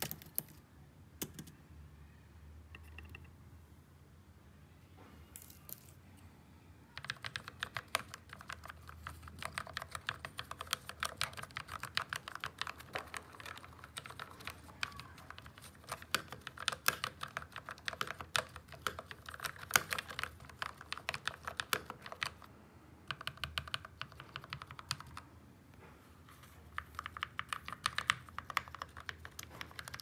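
Fast typing on a GMMK Pro mechanical keyboard with lubed Akko Matcha switches and DSA-profile keycaps: a dense, even run of key clicks. It starts after a few near-quiet seconds and breaks off briefly twice near the end.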